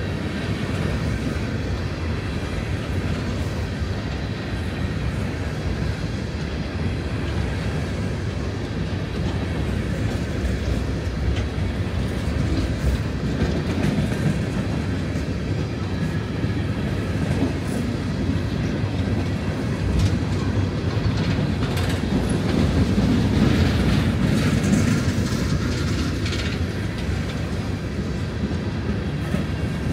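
Empty coal hopper cars of a freight train rolling past close by: a steady low rumble with the clickety-clack of wheels over rail joints, a little louder about three-quarters through.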